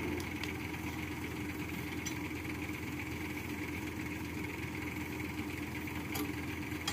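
Crane's engine idling steadily, with a few faint clicks over it.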